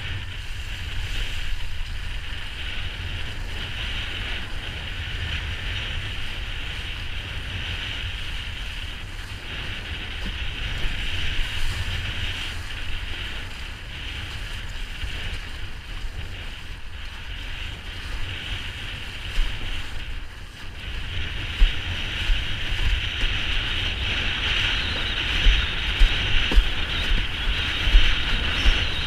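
Wind buffeting the action-camera microphone, with water rushing and hissing against a Tabou Manta windsurf board under sail. It gets louder in the last third, with sharp gusty spikes.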